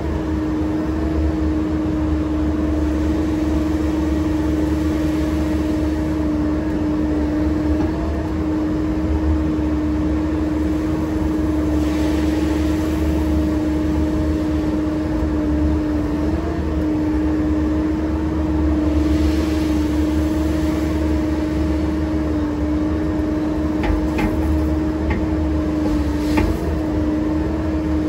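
Diesel engine of earthmoving equipment running steadily with a constant hum, and a few faint clicks near the end.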